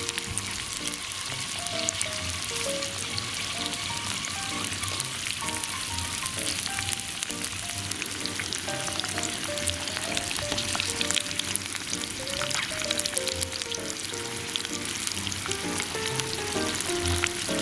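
Garlic-infused oil sizzling and crackling steadily as seafood ajillo bubbles in the wells of a cast-iron Captain Stag multi mini pan. Light background music plays under it.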